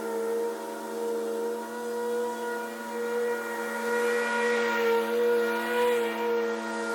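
John Deere zero-turn ride-on mower running steadily while mowing tall grass: a steady, even whine over the engine, swelling slightly in loudness now and then.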